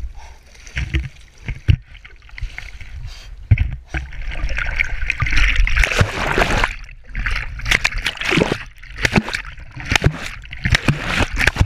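River water splashing and sloshing against a camera held at the surface while a man wades, with irregular splashes throughout and a stretch of dense rushing water noise around the middle as the camera dips under.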